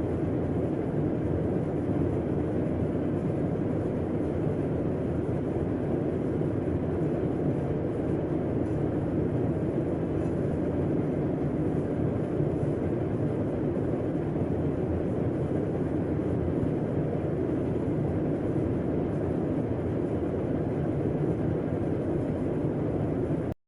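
Air conditioner running: a steady, low rushing noise with a faint hum, which cuts off abruptly at the end.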